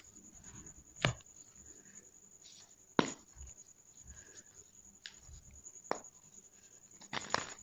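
Gym chalk balls being crushed: single sharp crunches a second or two apart, the loudest about three seconds in, then a quick run of crunches near the end.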